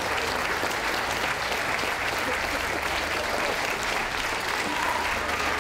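Audience applause, steady and unbroken.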